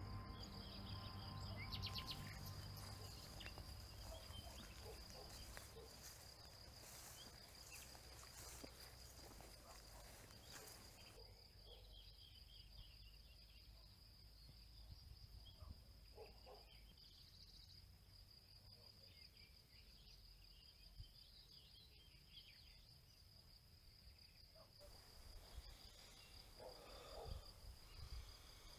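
Faint outdoor field ambience with a steady, high-pitched insect trill, typical of crickets.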